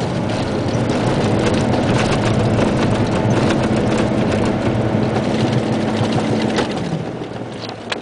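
Isuzu Giga dump truck's 380 PS diesel engine running steadily under way, heard from inside the cab, with frequent rattles and knocks from the cab over a rough dirt track. About seven seconds in, the engine drone drops away and gets quieter.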